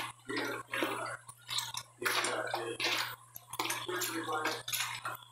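Hands squishing and turning pieces of pork and chicken in a wet marinade in a plastic basin, making wet squelching sounds in irregular bursts.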